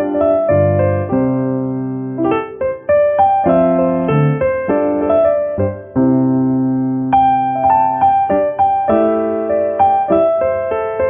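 Background piano music: notes and chords struck one after another and left to ring.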